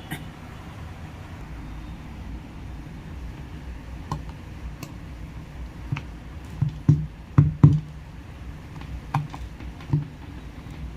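Scattered clicks and knocks of a plastic-bodied electric drill and its parts being handled, with a quick run of louder knocks about seven seconds in, over a steady low hum.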